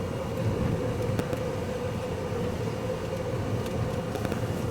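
Steady drone inside a vehicle's cabin: a constant hum over rushing noise, with a few faint ticks.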